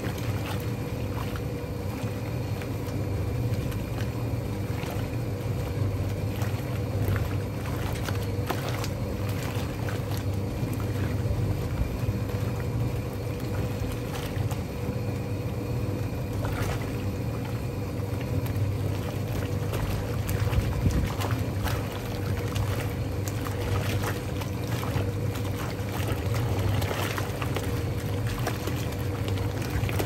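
Hoovermatic twin tub washing machine running a wash: the motor hums steadily while the pulsator churns and sloshes the soapy water and clothes in the tub.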